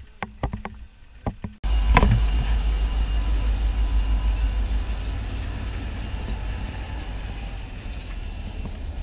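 Footsteps crunching on gravel track ballast, then a sudden change to the steady low rumble of a diesel-electric locomotive running close by, with a single sharp knock about two seconds in.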